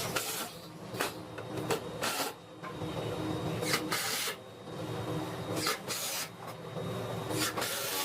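Woodworking sounds: about ten short, noisy strokes at irregular spacing, each well under half a second, over a low hum.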